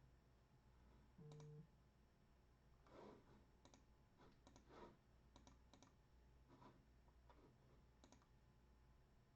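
Near silence: room tone with scattered faint clicks and a brief low tone just over a second in.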